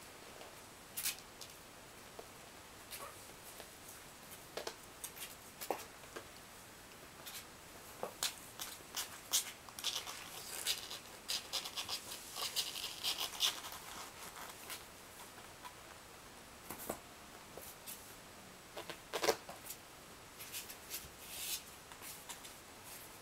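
Kittens' claws scratching and scrabbling on cardboard and upholstery as they climb: faint, scattered scratches and clicks, busiest around the middle and again near the end.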